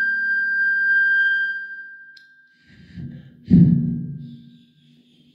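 Steady held tones at several pitches at once, fading out about two seconds in. A sharp click and some rustling follow, then a loud thump about three and a half seconds in that dies away over a second.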